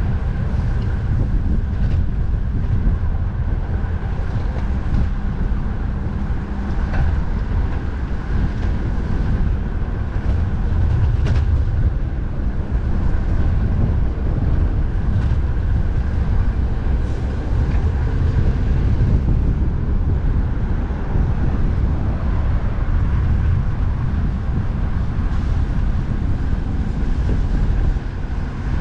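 Strong wind buffeting the microphone as a steady low rumble, with road traffic running underneath.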